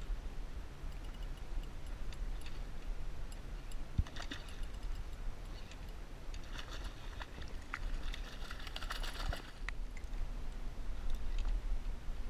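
Fishing reel clicking and ticking as a hooked bonita is reeled in beside the kayak, in scattered ticks with denser runs of clicking near the middle and about two-thirds through, over a steady low rumble.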